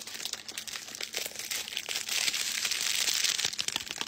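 Hands crinkling and unfolding packaging wrapping: a dense, crackling rustle full of small clicks, loudest in the second half.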